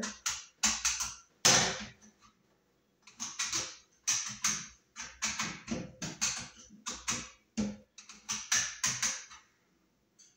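Short, irregular metal-on-metal scraping strokes as the cut edges of a metal Wiremold raceway are deburred to take off their sharp edges, a dozen or so strokes with brief pauses between them.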